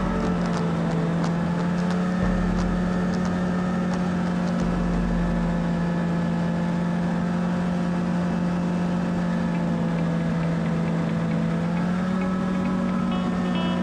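Polaris snowmobile engine running at a steady cruising speed, a constant drone that rises slightly in pitch near the end.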